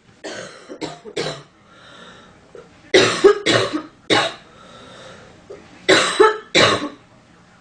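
A woman coughing in three short fits of two to four harsh coughs each, with pauses between the fits.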